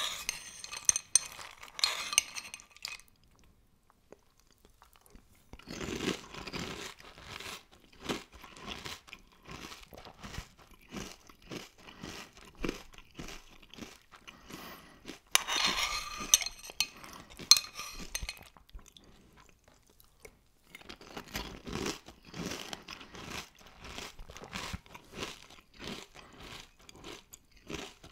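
Close-miked chewing of crunchy Cini Minis cinnamon cereal: loud crunching in several bouts, separated by short quiet pauses.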